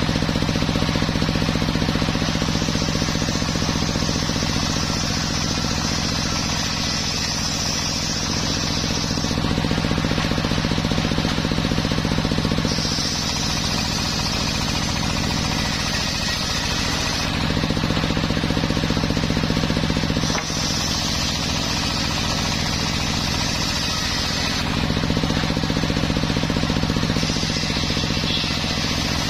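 Large circular sawmill blade ripping teak boards lengthwise, its high cutting hiss swelling in about four passes of several seconds each over the steady hum of the saw's drive.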